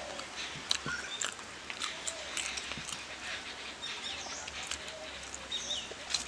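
Small clicks and taps of kochuri being torn and eaten by hand from a steel plate, with birds chirping in the background.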